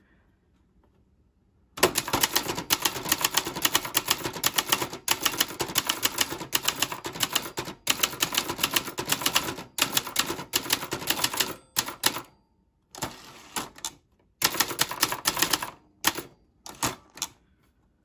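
Brother Charger 11 manual portable typewriter being typed on: a fast run of loud, metallic keystrokes starting about two seconds in, breaking off briefly a few times, with slower single strokes near the end.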